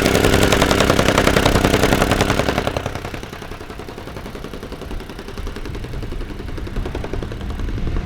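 An engine running with a rapid, even pulse. It is loud for the first two and a half seconds, then drops off and keeps running more faintly.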